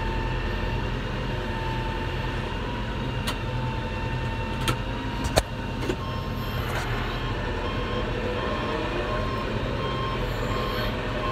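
Kioti PX1153 tractor's diesel engine running steadily, heard from the cab, with a few sharp clicks a few seconds in. From about six seconds in, the tractor's reverse alarm beeps over and over as it backs up.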